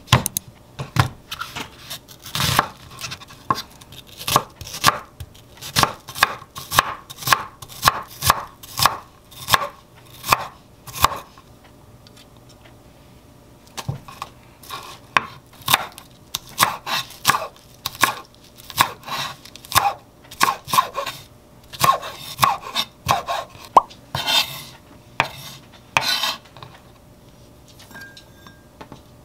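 Chef's knife chopping onion and green onions on a wooden cutting board, about two cuts a second. The chopping pauses for a few seconds about halfway, then resumes, with a few longer, noisier strokes near the end.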